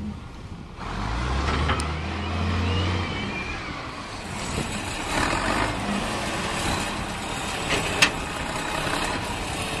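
Farm tractor engine running as it drives over the hay field, followed by a truck engine running while its bale loader works. A sharp knock comes about eight seconds in.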